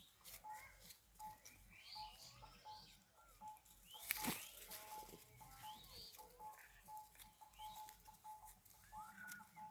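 Faint bird calls: a short note at one steady pitch repeated over and over, with chirps sliding up and down in pitch over it. A single sharp knock comes about four seconds in.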